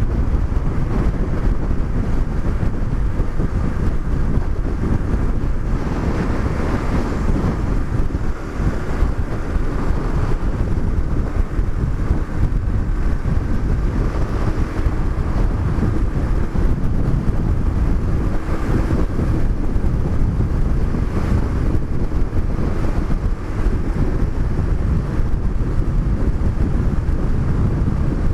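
Heavy wind noise buffeting the microphone on a Honda CBX 200 Strada motorcycle at about 100 km/h, with the single-cylinder engine's steady drone underneath.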